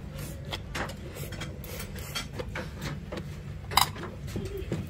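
Metal chopsticks and spoon clinking against a stainless-steel side-dish tray and bowls while eating, a series of light clicks with one sharper clink a little under four seconds in, over a steady low background hum.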